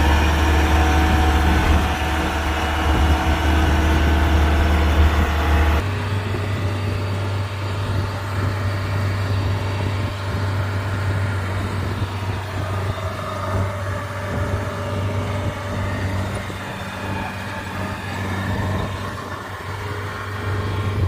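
Kubota DC-105X combine harvester's diesel engine running steadily with a deep, even hum, which shifts abruptly to a slightly higher, rougher note about six seconds in.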